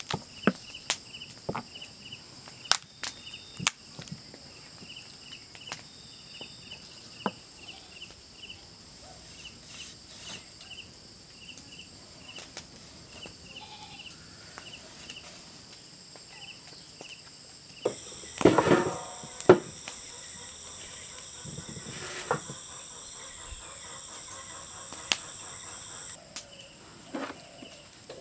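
Insects chirping steadily in an even pulse, with scattered small clicks and taps of knife work. About two-thirds of the way in comes a short run of loud knocks of a cleaver on a wooden chopping block.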